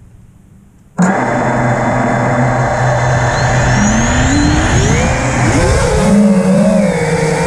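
FPV quadcopter's electric motors and propellers start spinning abruptly about a second in and run steadily, then climb in pitch over a couple of seconds as the throttle comes up for takeoff, levelling off near the end.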